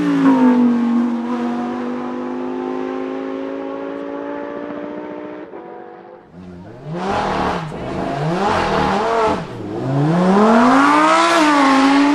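Lamborghini Huracán EVO's 5.2-litre naturally aspirated V10 pulling past with a steady note. After about six seconds the engine is revved up and down several times in quick succession, then swings through a long rising rev near the end.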